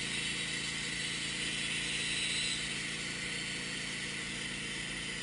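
Wood-Mizer LT15 bandsaw mill running steadily, its engine revved up with the band blade engaged and cutting through a log as the saw head moves forward.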